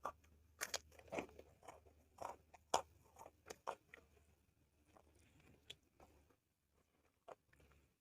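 Close-miked chewing and biting of spicy soy-sauce chicken with corn rice: a run of short crunchy, wet clicks, thick in the first half and thinning out after.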